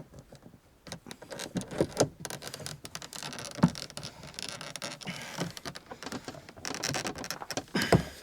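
A screwdriver prying at the plastic interior door trim panel of a Lada Kalina: scraping and rapid clicking of plastic, with sharp knocks about two seconds in, near four seconds and near the end, as the panel's clips resist coming free.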